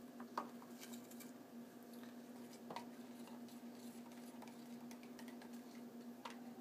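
Quiet handling of plastic water bottles on a counter: a few light clicks and taps, about three, over a steady low hum.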